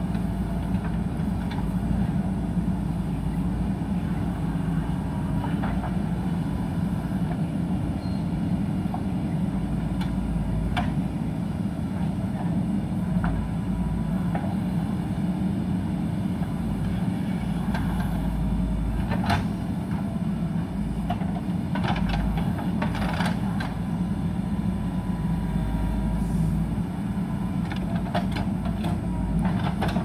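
JCB backhoe loader's diesel engine running steadily under load while its backhoe arm works the soil, with a few sharp knocks now and then.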